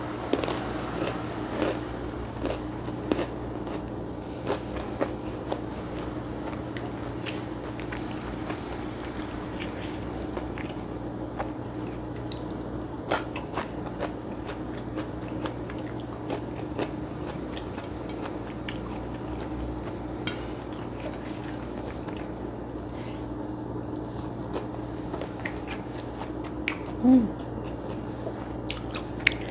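Close-miked chewing and biting of a meal eaten by hand, with scattered small mouth clicks and squishes over a steady low hum. A brief vocal sound comes near the end.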